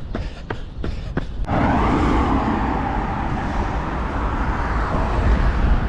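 Running footsteps on pavement, about three strides a second. About a second and a half in, a louder, steady road-traffic noise suddenly takes over and covers the steps.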